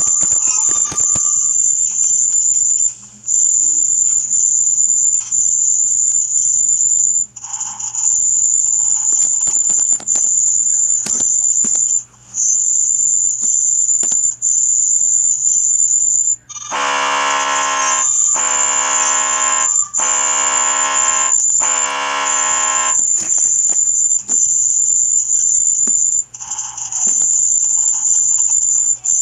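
Electronic sound effects: a very high-pitched steady tone repeating in stretches of one to two seconds with short breaks, and three loud, low buzzer tones in a row about two-thirds of the way through.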